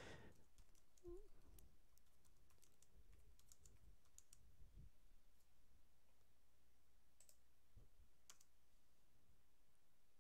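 Faint computer keyboard keystrokes as a terminal command is typed. The keystrokes come as a scattered handful of light clicks over quiet room tone.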